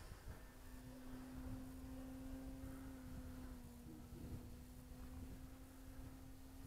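The motor of a Pietenpol model airplane, far off in flight, giving a faint, steady hum at one pitch that dips slightly about four seconds in.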